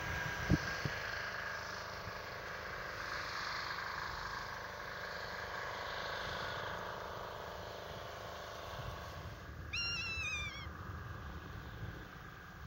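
Steady outdoor background noise, with a low knock near the start. About ten seconds in comes one short, high call of a few quick falling notes, from a bird or other animal.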